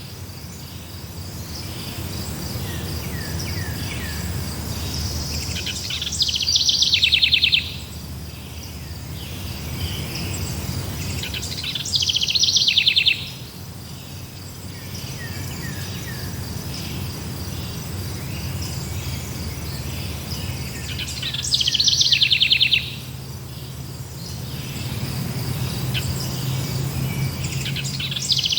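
A songbird sings a loud, fast-trilled phrase three times, each about a second and a half long, over a continuous high-pitched insect chirring and a steady low rumble.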